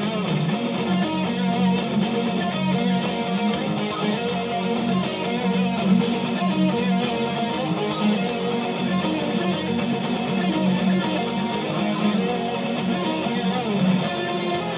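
Guitar-led music playing steadily, with strummed guitar and bass.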